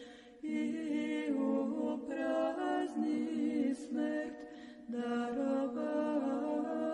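Orthodox church chant sung a cappella by several voices, held notes stepping from pitch to pitch. There is a short break just under half a second in.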